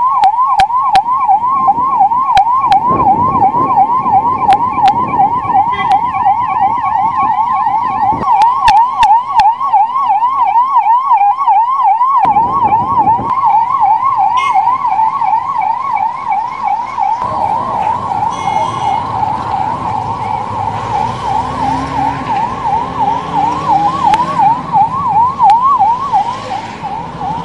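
Ambulance's electronic siren sounding continuously in a fast yelp, its pitch rising and falling several times a second, over road traffic noise.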